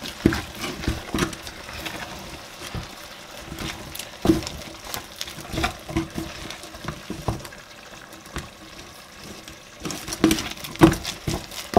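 Wooden spatula turning and pressing thick oat fufu in a pot, with irregular knocks and scrapes against the pot's side; the knocks come thicker about ten seconds in.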